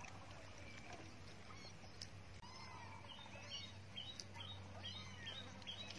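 Birds chirping faintly, a run of short repeated calls through the second half, over a quiet steady background hum.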